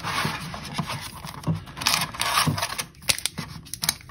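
Foil Pokémon booster-pack wrappers rustling and crinkling as they are handled and lifted out of a plastic blister tray. Several sharp plastic clicks and taps come near the end.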